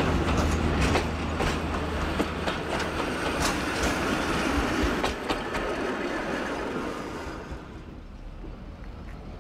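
Heritage passenger carriages rolling past on jointed track, their steel wheels clicking irregularly over the rail joints in a clickety-clack that fades as the train draws away. A low drone dies out within the first second, and the sound drops to a quiet background about seven and a half seconds in.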